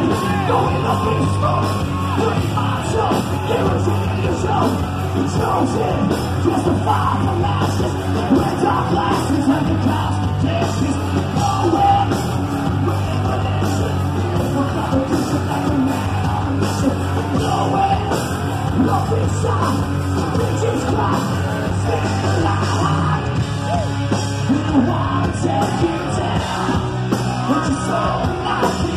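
Live rock band playing loud, with steady, driving drums and a singer yelling and singing into a microphone.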